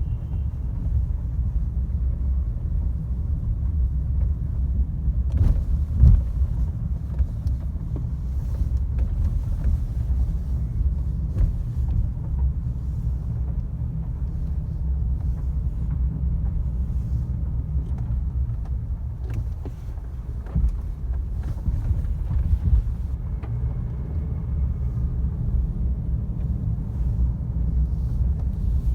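Car driving on a rough, broken road: a steady low rumble of tyres and road noise, with a few sharp knocks from bumps, the loudest about six seconds in.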